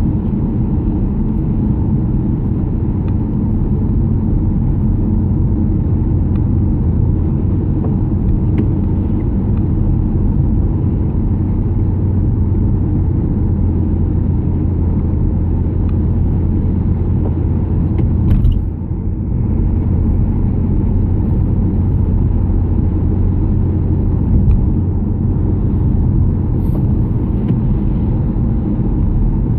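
Steady low rumble of engine and tyre noise heard inside a car cabin at motorway speed on a wet road, with one brief knock about two-thirds of the way through.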